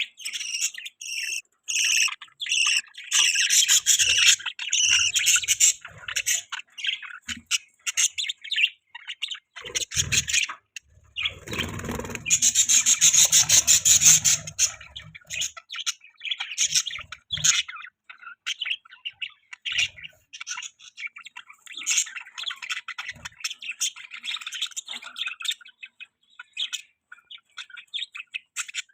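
Budgies chirping and chattering: a steady stream of rapid, high chirps, with a louder, busier stretch a little before the middle.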